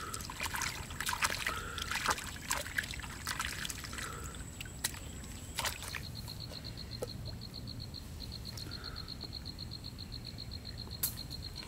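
Water splashing and trickling, with irregular clicks and splashes through the first half. About halfway a rapid, high, evenly pulsed call starts and keeps going.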